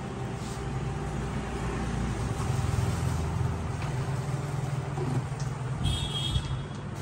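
Canon PIXMA G3012 ink tank printer's mechanism running: a steady low motor hum that swells about two seconds in, with a few light clicks near the end.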